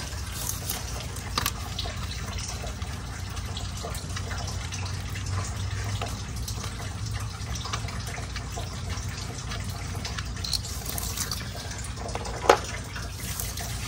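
Steady low hum and hiss of background noise, with a few light clicks and taps from parts being handled in the engine bay, one sharper click near the end.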